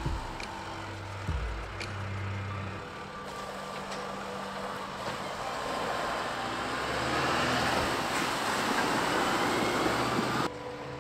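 Mercedes-Benz Unimog off-road truck driving: diesel engine running low with a dull thump about a second in. Then engine and tyres on gravel grow louder as the truck drives past, with a faint rising whine, until the sound cuts off suddenly near the end.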